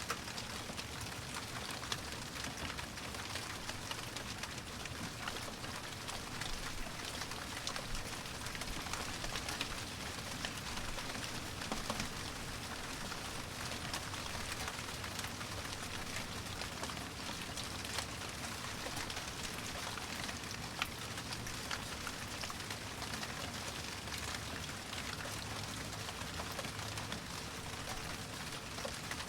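Steady rain, with many individual drops ticking on a surface.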